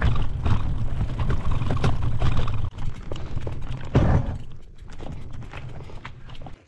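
Wind buffeting the microphone while a loaded gravel bike rattles and knocks over bare rock. The wind noise dies away about four seconds in, leaving lighter clicks and scrapes.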